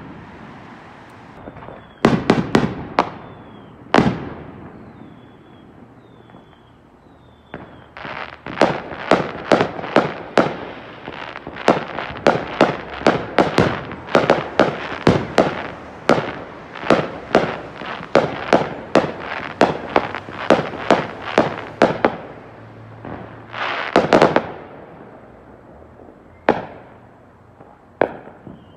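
Aerial fireworks going off: sharp bangs, a few at first, then a long volley of two or three bangs a second lasting about fourteen seconds, and a dense cluster of bursts near the end.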